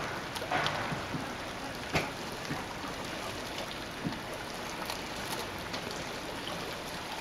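A steady hiss of water, with a few light clicks, the sharpest about two seconds in.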